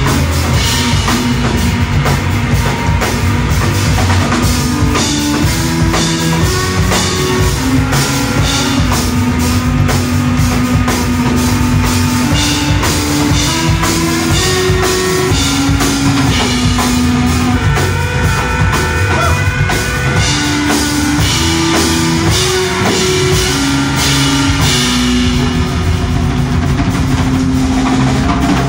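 A live rock-leaning trio playing loud: a drum kit played busily with cymbals, an electric guitar, and a line of low held notes stepping up and down in pitch. The cymbals thin out over the last few seconds.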